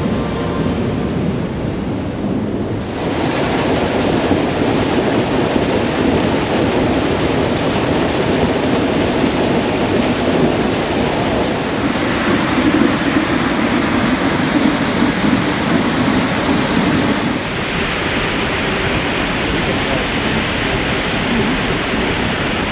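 Large waterfall pouring down, a loud, steady rush of falling water that grows fuller about three seconds in and shifts in tone a couple of times.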